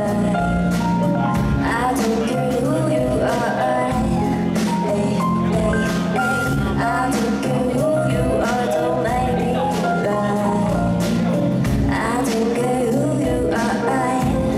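Live band playing through amplifiers, with drums, electric guitar, bass and keyboard under a sung vocal line, loud and steady throughout.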